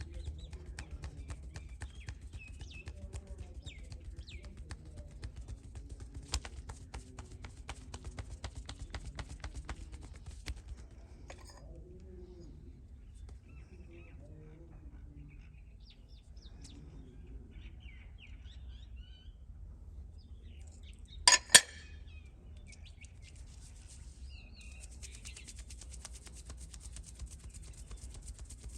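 Rapid percussive massage strokes, hands tapping and chopping on the head and back, stopping about ten seconds in and starting again near the end. Birds chirp in the pause, and two sharp, loud cracks a fraction of a second apart come a little after the twenty-second mark, the loudest sounds here.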